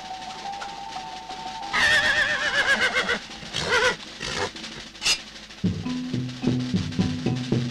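A horse whinnying about two seconds in, a wavering call lasting about a second, with a shorter one after it. About six seconds in, rhythmic music with a steady drum beat starts.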